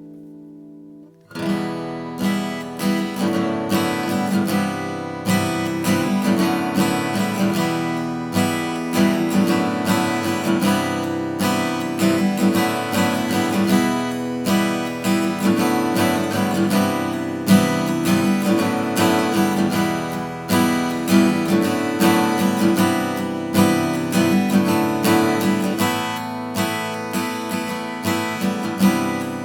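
Vintage Japanese acoustic guitar strummed in chords, starting about a second in after a chord fades out, with a steady run of strokes.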